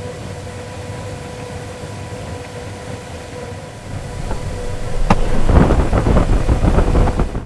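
Large test blower running with a steady hum that builds after about four seconds. About five seconds in there is a single sharp click, then loud, gusty wind buffeting.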